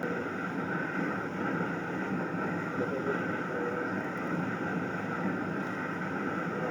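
Wood lathe running with a steady whirring noise, with no distinct knocks or changes.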